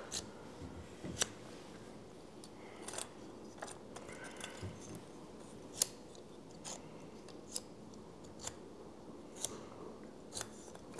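Faint, irregular clicks and ticks of 3D-printed plastic model parts being handled and folded, roughly one a second.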